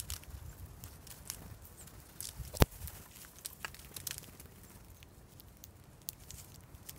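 Small birds pecking at birdseed in a stone dish: an irregular patter of quick light taps and clicks, with one sharp, much louder click about two and a half seconds in.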